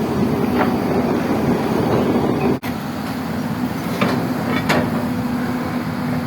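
Hyundai long-arm excavator's diesel engine running steadily with a low, even drone, with a few sharp knocks or clanks from the machine.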